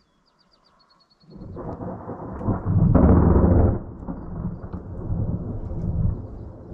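Thunder rolls in about a second in, builds to a loud peak near the middle, then rumbles on more quietly.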